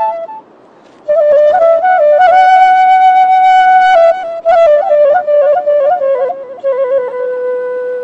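Background music: a solo melody on a wind instrument, with long held notes and quick ornamented turns. It breaks off for about half a second just after the start.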